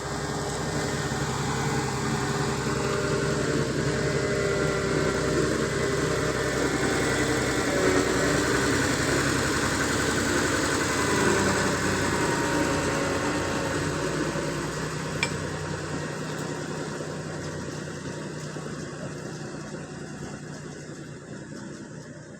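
Engine of road-paving machinery running steadily, loudest around the middle and then fading away toward the end, with one sharp click about fifteen seconds in.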